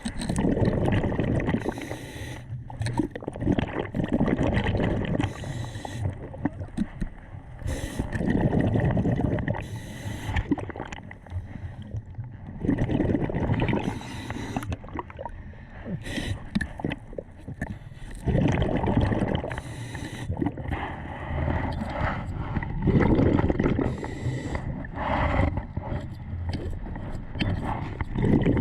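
Muffled water noise picked up by an underwater camera, with gurgling surges that come about every four to five seconds over a faint steady high tone.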